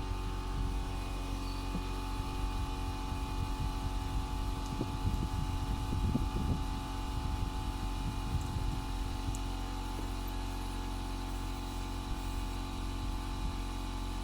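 A machine running steadily at a constant speed, a hum of several fixed tones over an uneven low rumble.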